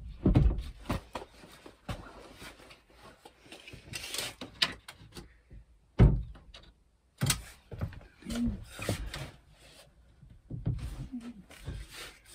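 Scattered wooden knocks and scrapes from a plywood countertop being shifted and marked on its cabinet, with a heavy thump about six seconds in.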